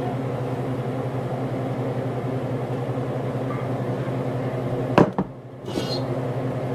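Steady low electric hum of a kitchen appliance motor with a light hiss. About five seconds in there is a sharp knock, and the hum drops away for a moment before it comes back.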